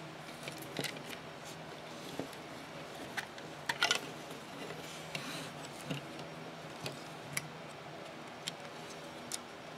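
Scattered small plastic clicks and handling noises from a plastic Raspberry Pi case being opened and its camera ribbon cable handled, with a louder cluster of clicks about four seconds in as the lid comes off.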